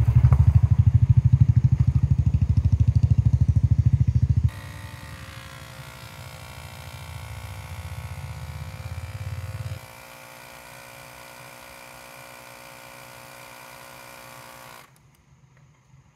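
Portable tyre inflator running as it pumps up a car tyre: first a loud, rapid, deep pulsing from its small piston compressor, then, after a sudden drop at about four and a half seconds, a quieter steady whine. The whine thins at about ten seconds and stops shortly before the end.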